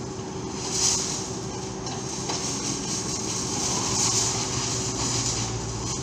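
Excavators' diesel engines running steadily under hydraulic load, with a low hum and a harsher clatter swelling every second or two as they work broken concrete.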